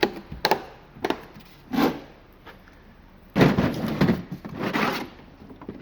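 Blow-molded plastic tool cases being handled and shifted: a few short knocks and clicks in the first two seconds, then a louder stretch of rattling and sliding about three and a half seconds in.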